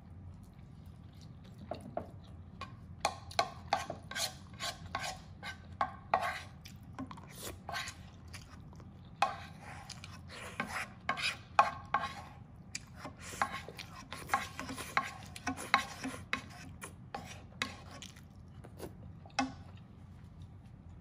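A wooden spoon scraping and tapping across a nonstick frying pan, gathering up the last rice and sauce. The quick, repeated scrapes come several a second, in two long runs with a short pause about nine seconds in.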